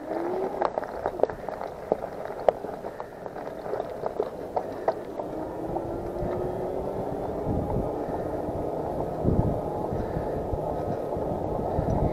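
E-bike riding along: steady rolling and rumbling noise that builds slightly, with sharp clicks and rattles in the first few seconds and a faint whine rising in pitch about five seconds in.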